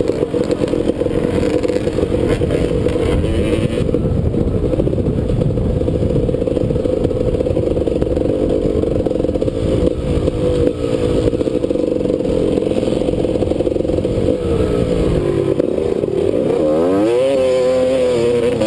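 Dirt bike engine running under way on the trail, heard from the bike's onboard camera. It holds a fairly steady pitch, then revs up and down in quick swings near the end.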